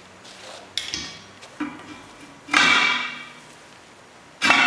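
A steel tire-demounting bar clanking against steel truck wheel rims: a few light clinks, then two loud metallic clangs that ring and fade, about two seconds apart.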